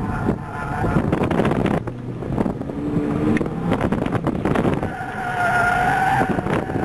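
Mini Cooper S four-cylinder engine revving and pulling hard through an autocross run, heard from inside the cabin along with road and wind noise. About five seconds in, the front tyres squeal steadily through a hard turn.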